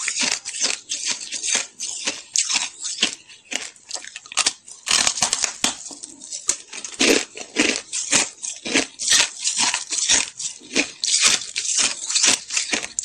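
Hard shaved ice being bitten and chewed, a quick, steady run of crisp crunches, a few a second.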